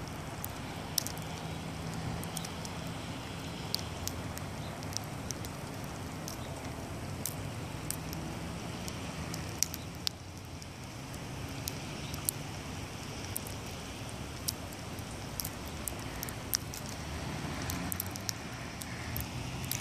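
Light rain falling: scattered drops tick irregularly close by over a steady hiss, with a low rumble underneath.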